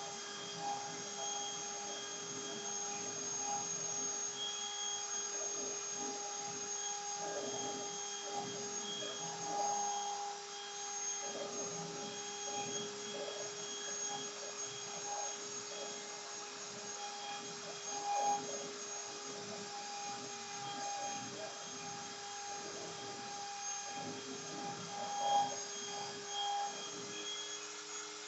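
CNC router running steadily with a constant high whine from its spindle, under an uneven scraping noise from the cutting.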